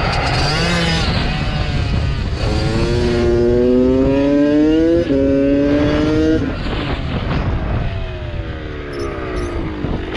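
Kawasaki KX dirt bike engine accelerating hard with a short break in the pitch about five seconds in as it shifts up, then winding down as the bike slows. Wind rushes over the helmet-mounted microphone throughout.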